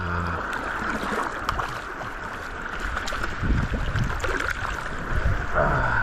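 Shallow sea water sloshing and lapping close to the microphone, with irregular low splashes as people move through the water.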